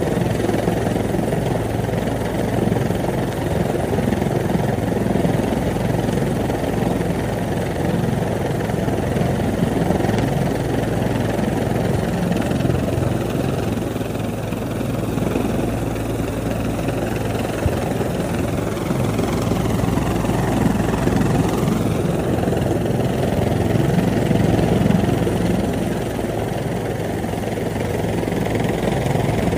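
Fast-flowing floodwater and falling rain: a steady low rushing noise that holds at one level throughout.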